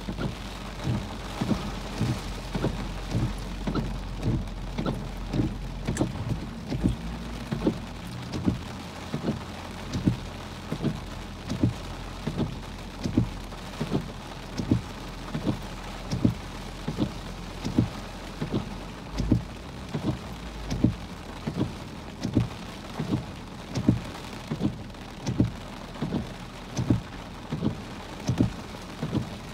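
Heavy rain pelting a car, heard from inside the cabin. A regular thump comes a little more than once a second over a low steady hum.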